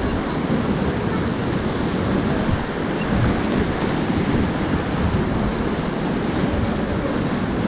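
Fast river water rushing, a steady noise heaviest in the low range, with wind buffeting the microphone.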